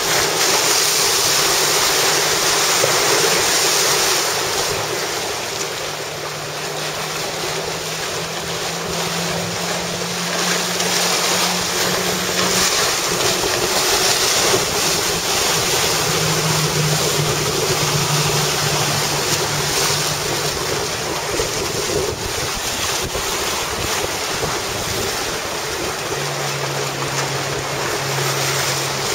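Wind buffeting the microphone and water rushing and splashing in rough open water, with a boat engine's steady hum underneath that drops a little in pitch a few times.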